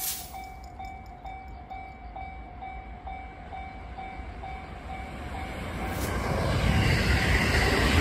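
Level-crossing warning bell ringing at about two and a half strokes a second, then a rapid electric train approaching and passing, its rumble swelling from about five seconds in until it drowns out the bell.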